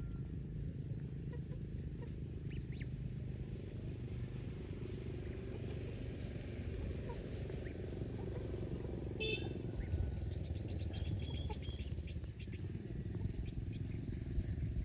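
Hybrid lion-head goslings peeping faintly and sporadically, with a short run of quick peeps about two-thirds of the way through, over a steady low rumble.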